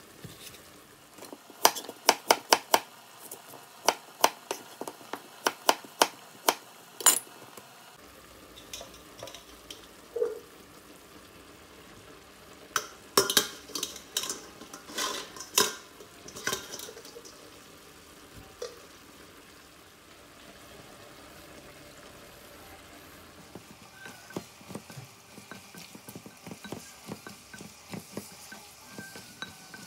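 A chef's knife cuts an onion on a bamboo cutting board: a run of sharp, uneven knocks on the board, with a second cluster partway through. Near the end, sliced onion, carrot and other vegetables are stir-fried in a pan, a faint steady sizzle with light scraping and clicks from the spatula.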